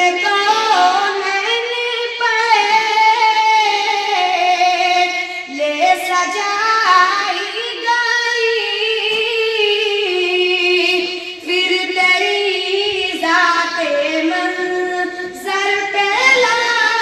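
A boy singing a naat, an Urdu devotional song, solo into a microphone: long held, wavering notes that bend up and down, in phrases with brief breaks.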